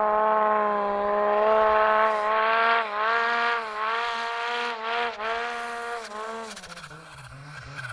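Snowmobile engine held at high revs, with short dips in the throttle about once a second; near the end the revs fall away.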